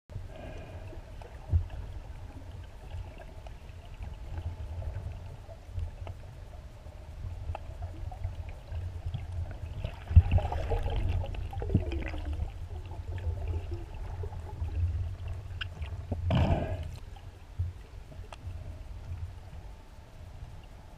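Underwater sound picked up by a GoPro Hero 3+ inside its waterproof housing: a steady, muffled low rumble of moving water with scattered knocks and clicks. A sharp knock about ten seconds in is followed by a louder rush of noise for a couple of seconds, and a short loud burst comes about sixteen and a half seconds in.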